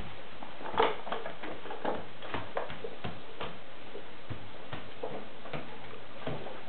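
Plastic push-along toy truck rolling on a hardwood floor, its wheels and body giving off irregular clicks and knocks, a few each second, with a louder knock about a second in.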